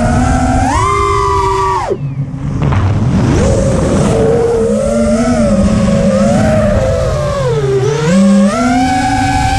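FPV racing quadcopter's brushless motors whining, the pitch rising and falling with the throttle. About two seconds in the throttle is cut and the whine drops away, then spools back up a second later; it dips and climbs again near the end.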